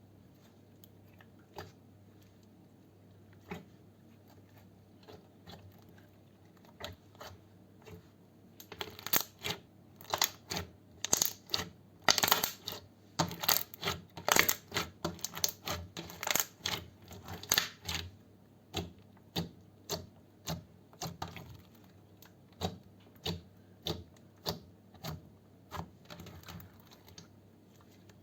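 Slime being squeezed and pressed close to the microphone, giving off sharp clicking pops. The pops are scattered at first, come thick and fast for about nine seconds in the middle, then thin out again.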